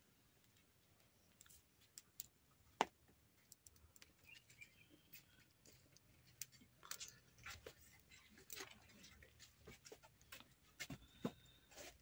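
Faint, sparse crackling and ticking of a wood cooking fire, with a bird chirping faintly once or twice.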